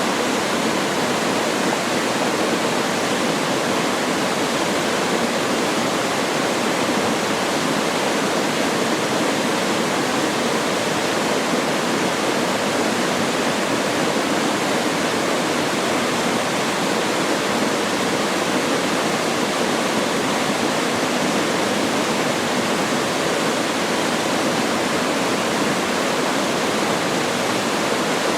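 Waterfall: a steady rush of falling water splashing into a mountain stream pool, unchanging throughout.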